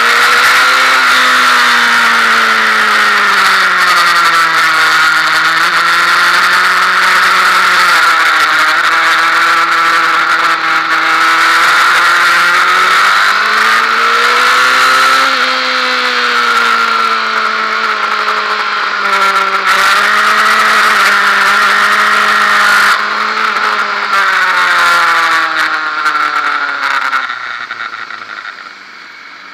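Onboard sound of a Honda Fireblade sports bike's inline-four engine at track speed, the engine note rising and falling with the throttle over heavy wind rush. Near the end the engine note and wind drop away as the bike slows hard for a corner.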